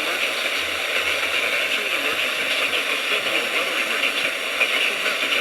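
Steady hiss of static from a radio receiver on a weak or noisy station signal, with only faint traces of a voice under the noise.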